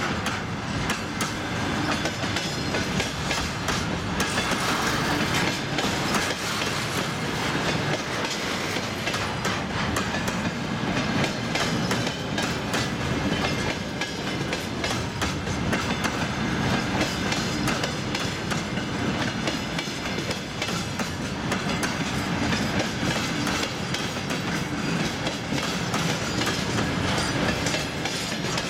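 Container freight train passing close by: a steady rumble of the wagons with many rapid clicks of wheels running over the rail joints.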